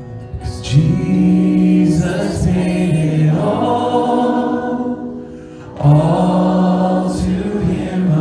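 Worship band singing and playing a slow hymn, several voices with guitar accompaniment. Two long sung phrases with held notes, with a short dip between them about five and a half seconds in.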